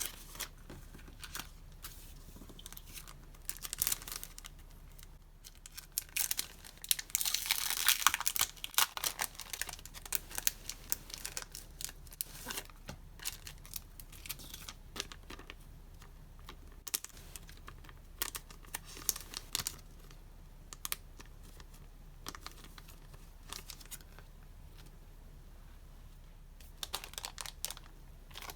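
Paper and plastic packaging being handled and unwrapped by hand: crinkling and tearing, with a denser stretch of rustling about six to nine seconds in and scattered light taps and clicks between.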